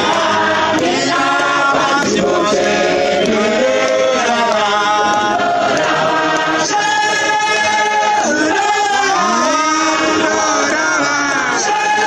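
Church congregation singing together, many voices with men's voices prominent, unaccompanied.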